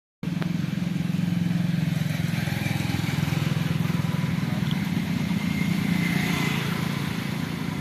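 A vehicle engine running steadily at a low pitch, with a fast even pulsing to it.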